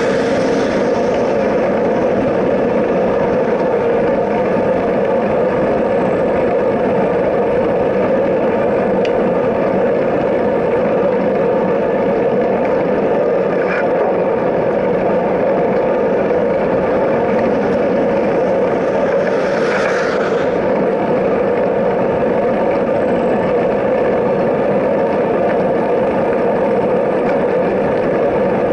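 Steady, loud rushing noise of wind and road while riding along a highway shoulder, with a car passing the rider at the start and another vehicle hissing past about 20 seconds in.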